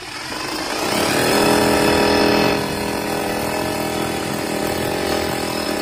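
Buildskill rotary hammer drill boring a hole into a brick wall, its motor running steadily under load. It is loudest in the first couple of seconds, then settles a little lower until it stops near the end.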